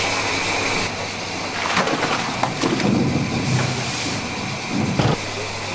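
Coconut pieces tipped from a plastic crate into a steel tank of hot water: irregular splashing with several sharp knocks.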